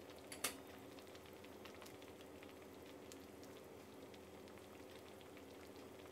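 Faint crackling and popping of fish broth coming to the boil in a pot, with one light knock about half a second in.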